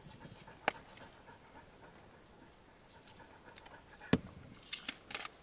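A dog panting, winded from a long game of fetch, with two sharp knocks of small seasoning bottles being set down on a wooden board, one under a second in and one about four seconds in.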